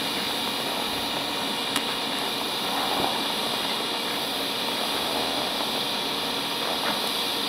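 TIG welding arc burning steadily on a stainless steel tank seam: an even hiss, with a faint tick about two seconds in.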